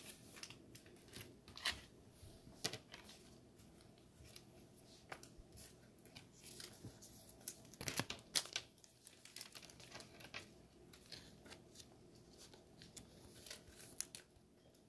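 Trading cards being handled and flipped through, with faint scattered clicks, slides and crinkles of card stock and pack wrapper; a sharper click about eight seconds in.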